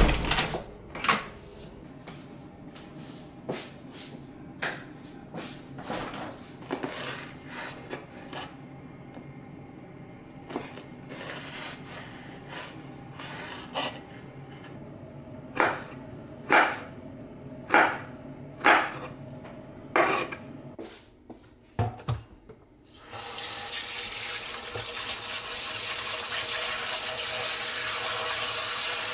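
Scattered clicks and knocks, then a knife chopping green bell pepper on a wooden cutting board in about five sharp strikes. About two-thirds of the way through, a kitchen tap starts and runs steadily into a stainless-steel bowl in a steel sink, splashing over the fish being rinsed in it.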